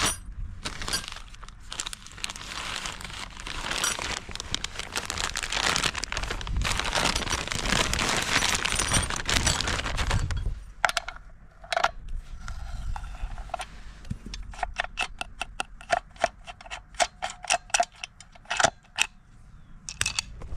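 Rustling and handling noise for about the first ten seconds, then a run of light metallic clicks and clinks as the Stihl MS 362 chainsaw's sprocket cover and bar nuts are worked by hand.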